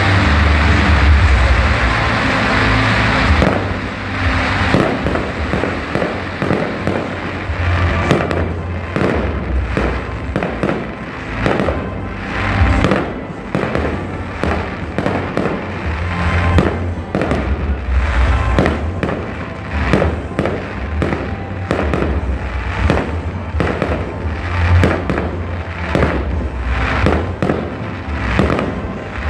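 Fireworks display. A dense crackling hiss for the first few seconds, then a long run of sharp bangs and crackles in quick succession, several a second.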